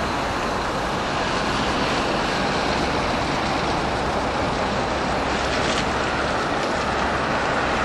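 Automatic car wash machinery running with a steady, loud rushing noise as a van drives out of the wash bay.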